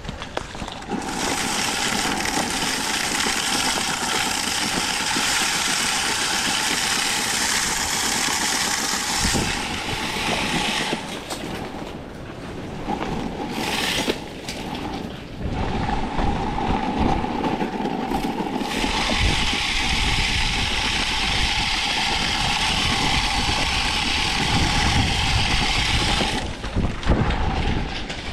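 Salt spreader throwing rock salt: a steady whir with a hiss of spraying salt that drops out for several seconds mid-way and then resumes. Gusty wind rumbles on the microphone in the second half.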